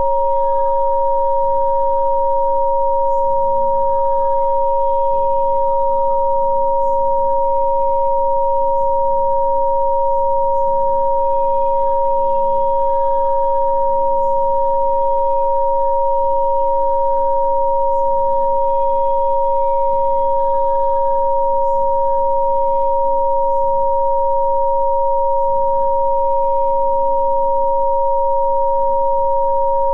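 Two electronically generated pure tones, one lower and one higher, held at a perfectly steady pitch and level as a Rife frequency-therapy signal. Faint ambient music with slowly changing low notes and soft high chimes sits underneath.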